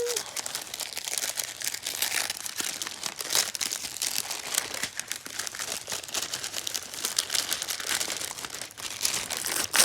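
Plastic wrapping crinkling and rustling as a double-wrapped package is unwrapped by hand, an uneven run of crackles throughout.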